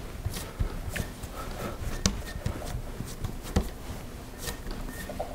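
Hands pressing and patting a ball of shortcrust pastry dough on a silicone mat, with a few soft, irregular knocks as it is pushed down into a disc.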